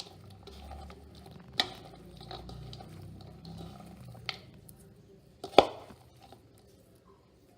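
Sliced onions mixed with garlic, curry leaves and coriander leaves in a mixing bowl: soft rustling and squishing, with sharp knocks against the bowl about a second and a half in and again about five and a half seconds in.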